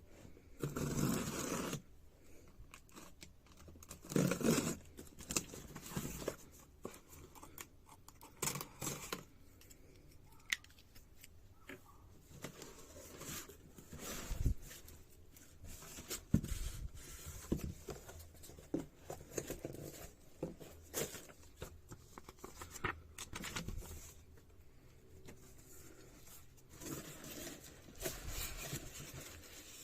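Cardboard packaging being opened by hand: cutting, tearing and rustling in short irregular bursts, with scattered sharp clicks and knocks of handling.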